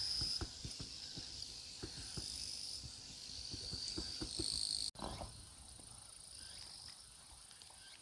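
Insects trilling in a steady high-pitched chorus that swells and fades, with a few faint low taps.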